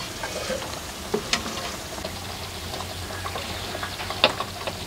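Wet pomelo pulp handled and dropped into a plastic blender jar: soft squishing and crackling, with a couple of light clicks, about a second in and near the end.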